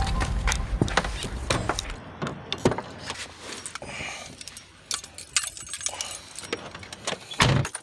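Music fading out over the first two seconds, then scattered light clicks and rattles of small objects being handled, with a louder knock near the end.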